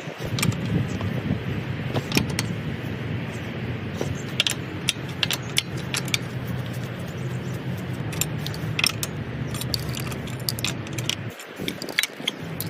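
Metal tools and parts clinking and rattling as a car wheel is taken off to reach the brakes, with many short sharp clinks over a steady low hum that drops out briefly near the end.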